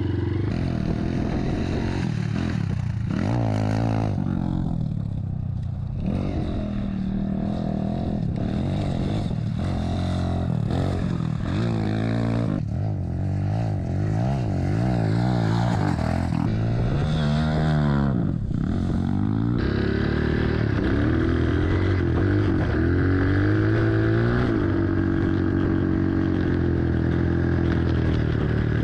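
Honda CRF150R single-cylinder four-stroke dirt bike engine, fitted with a 240 big-bore kit, revving and accelerating, its pitch climbing and dropping repeatedly, with sudden jumps in the sound where shots are cut together.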